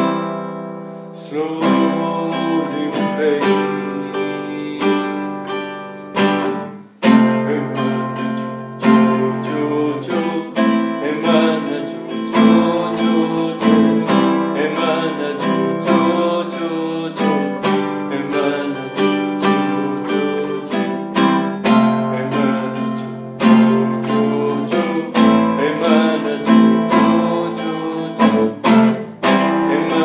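Acoustic guitar strummed in a steady rhythm, with a brief stop about seven seconds in.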